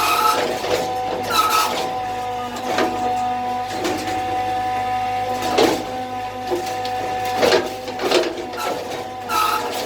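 A machine running with a steady hum, broken by short rasping noises every second or so.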